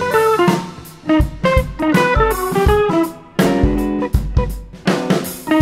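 Intro music: a melody of short plucked guitar notes over a drum beat.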